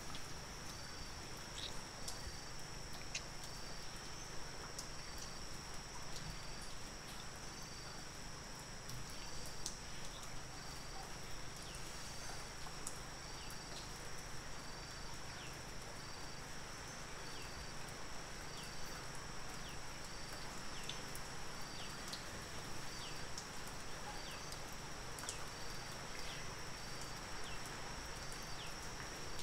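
Night insect chorus: a steady high-pitched trill with a second insect chirping roughly once a second over it, and scattered faint ticks.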